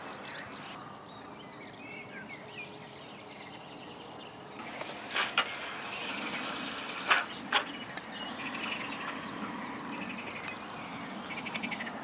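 Casting a carp feeder rod: fishing line hisses off the reel spool for about two seconds, with a few sharp clicks, then a run of fast light ticking near the end.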